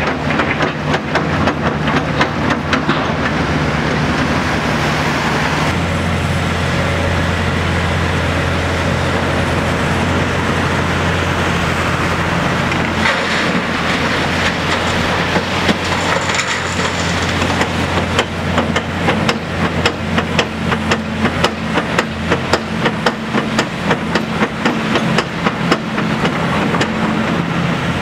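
Hitachi ZX870 LCH excavator's heavy diesel engine and hydraulics running steadily under load while loading a tipper truck. Its note shifts about six seconds in, and it is overlaid by many sharp knocks and clatters that come thickest in the second half.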